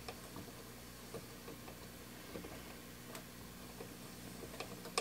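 Faint steady mains hum from a 1964 Star-Lite tube radio as its tubes warm up in AM mode, with scattered small ticks and clicks.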